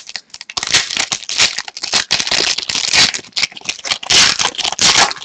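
A hockey card pack's wrapper being torn open and crinkled by hand: a busy run of crackling and rustling that stops suddenly at the end.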